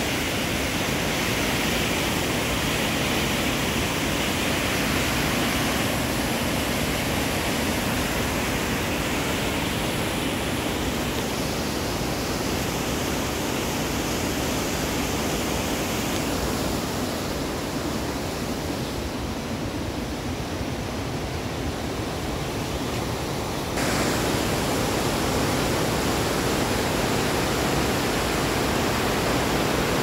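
Waterfall, water rushing and splashing as a steady, even hiss-like rush; it gets suddenly louder about six seconds before the end.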